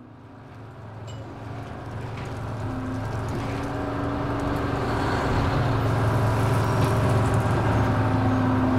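Bus engine running with road noise heard from inside the cabin, a steady low drone that fades up over the first few seconds and then holds steady.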